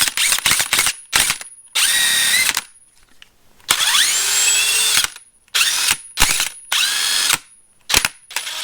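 Cordless DeWalt impact wrench spinning freely with no load, its trigger pulled in about ten quick bursts of varying length. Each burst starts with a motor whine rising in pitch as it spins up, then cuts off on release.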